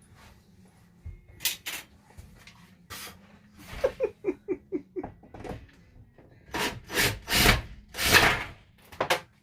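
RV ceiling panel being pried loose and pulled down: scattered cracks and scrapes, a quick run of five short squeaks about four to five seconds in, then louder rustling crashes of the panel and debris coming down near the end.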